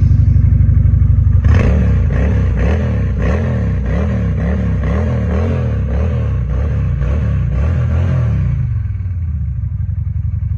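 Honda Shadow 750's V-twin engine running just after start-up. From about a second and a half in, the throttle is blipped in a steady rhythm, roughly two short revs a second. Near the end it settles back to a steady idle.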